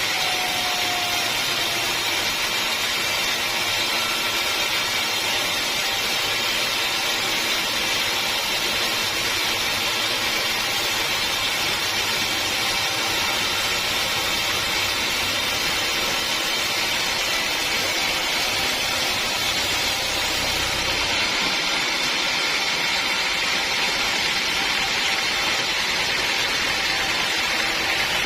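Sawmill saw running steadily, a continuous machine whine over a rush of noise that does not let up.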